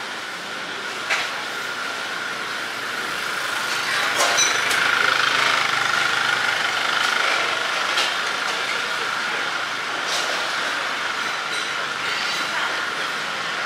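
Street ambience: a steady rushing hum with a faint steady high tone running through it, a few sharp clicks or taps, and background voices. It swells about four seconds in and eases a little after about eight seconds.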